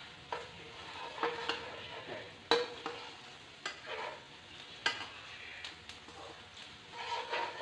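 Sliced onions sizzling in oil in a wok while a spatula stirs them, scraping and tapping the pan at irregular moments, roughly once a second.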